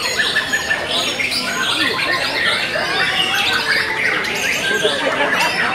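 White-rumped shamas (murai batu) singing together: a dense, unbroken tangle of many overlapping quick whistled phrases.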